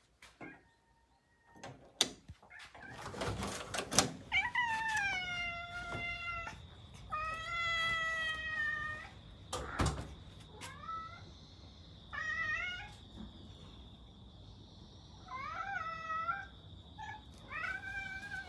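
Domestic cats meowing for their breakfast: two long drawn-out meows, then shorter meows in quick pairs and threes toward the end. A door latch clicks and a door opens before the first meow, and a single knock comes about halfway through.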